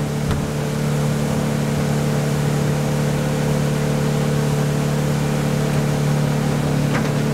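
Motorboat engine running at a steady, even pitch, heard from inside the boat's wheelhouse, with a steady rushing hiss of the boat moving through the water.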